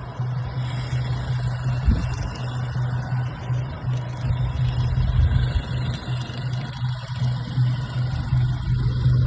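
An engine running steadily with a low, pulsing hum, over background music.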